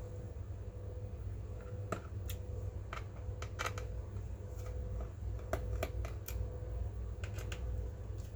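Irregular small clicks and taps from hands working on an HP EliteBook 840 G7 laptop's case and parts, about a dozen over several seconds, over a steady low hum.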